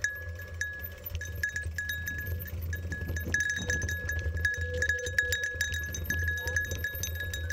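A small metal bell jingling over and over at irregular intervals as the mountain bike jolts along a dirt trail, over a steady low rumble of the ride.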